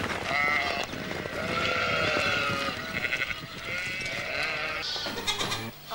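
A herd of goats bleating, many calls overlapping, with a patter of hooves as the herd trots across packed earth.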